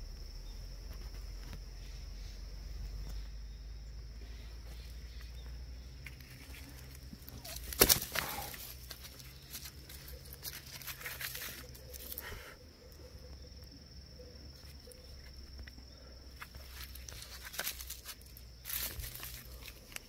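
Footsteps and rustling through forest leaf litter and undergrowth in irregular bursts, with one sharp knock about eight seconds in, over a faint steady high-pitched tone.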